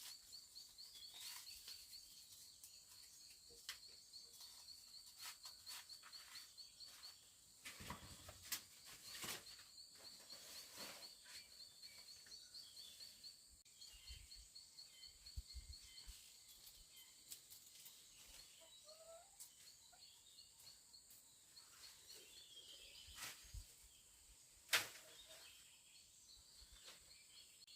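Faint outdoor ambience: an insect chirping in fast, even high-pitched pulses, with scattered small clicks and rustles and one sharp click near the end.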